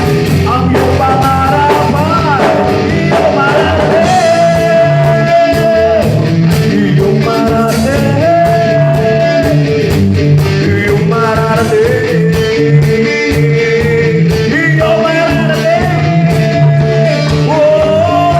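Live rock band playing loudly: drums, bass and electric guitars under a melodic line of long held notes that bend in pitch.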